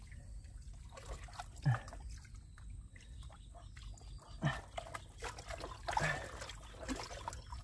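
Wet mud squelching and sucking as an arm digs deep into a mantis shrimp burrow, with four short low sounds that drop in pitch.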